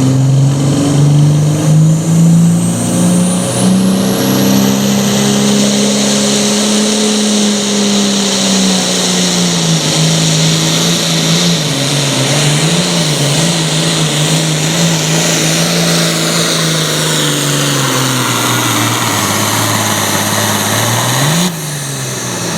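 Super Farm pulling tractor's turbocharged diesel engine at full throttle through a pull: the engine pitch climbs, swings up and down several times in the middle, and sags toward the end. About 21 seconds in the throttle comes off and the engine drops back.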